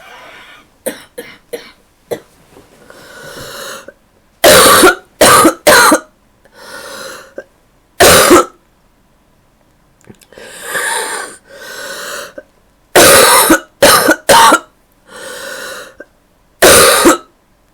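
A sick girl's terrible wet cough: loud, sudden coughs, several in quick runs of two or three, with quieter breathing sounds between the fits.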